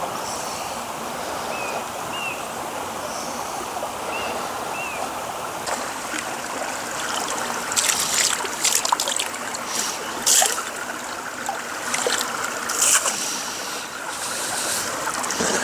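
Shallow stream running over stones, a steady rush of water. In the second half, splashes and clatter of stones as someone dips into the water at the edge. A few short high chirps in the first few seconds.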